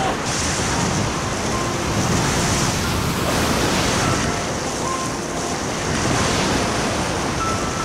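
Sea surf breaking and foaming in the shallows, washing right over the microphone at the waterline: a steady rush of water noise.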